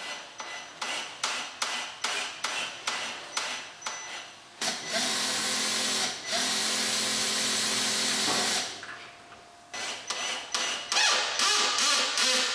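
Cordless drill driver driving screws through the dishwasher's fixing holes into the door panel. The motor runs in short, evenly repeated bursts, then runs steadily for about four seconds, then goes back to short bursts.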